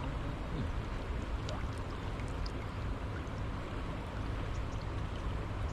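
Steady wind rumbling and rushing on the microphone, with a few faint light ticks.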